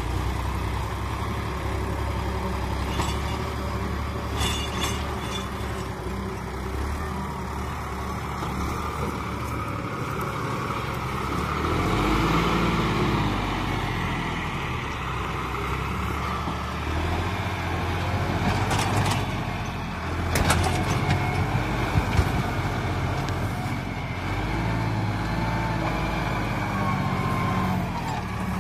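John Deere tractor's diesel engine running under load while pulling a mouldboard plough through dry soil, its pitch rising and falling once about twelve seconds in. A few sharp knocks sound about twenty seconds in.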